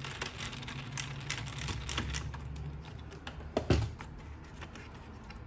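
Hand screwdriver backing out the small screw that holds a laptop-size hard drive in a metal chassis: a run of small clicks and scrapes, then a single louder knock about three and a half seconds in.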